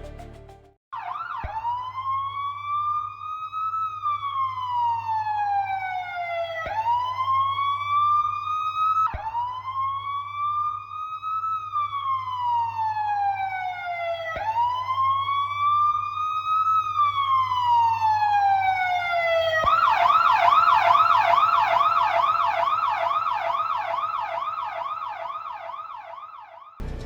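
Emergency-vehicle siren sounding a slow wail, its pitch rising and falling about every five seconds. About twenty seconds in it switches to a fast yelp of about three cycles a second, which grows louder and then fades away. A low steady hum runs underneath.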